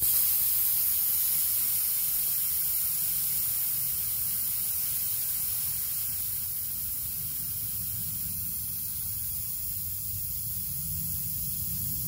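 Compressed air from an air compressor hose hissing through a chuck held on the Schrader-valve inlet of a DIY paint-can smoke machine, driving smoke out of its outlet hose. The hiss starts abruptly and runs steadily, easing slightly.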